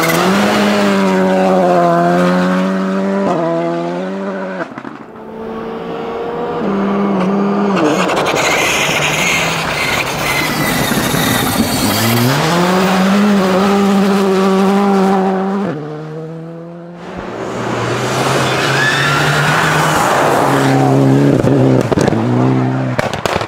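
Rally cars driven flat out on a snow stage one after another, the first a Volkswagen Polo GTI R5, its turbocharged four-cylinder engine running high. Each engine note climbs and then drops sharply at gear changes several times over, with the hiss of tyres spraying snow between them.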